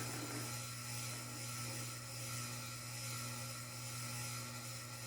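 Ceiling fan running with a steady whir and hum.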